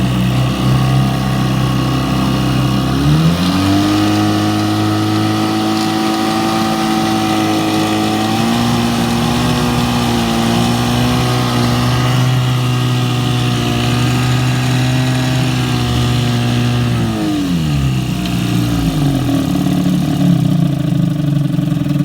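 1955 Johnson 3 hp two-cylinder two-stroke outboard motor, freshly rebuilt, running. It idles, is throttled up to a higher steady speed about three seconds in, runs there for roughly fourteen seconds, then is throttled back down to idle.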